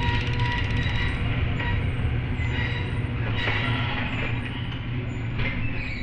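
Garage door opener's chain drive running: a steady low mechanical rumble with metallic squealing and rattling over it.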